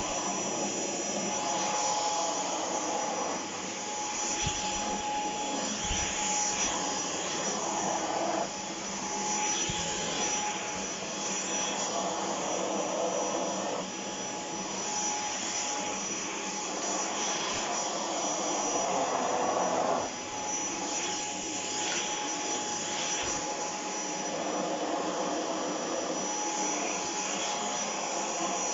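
Shark PowerDetect corded stick vacuum cleaner running: a steady rushing whine with a thin high tone over it, growing louder and softer in turns every few seconds.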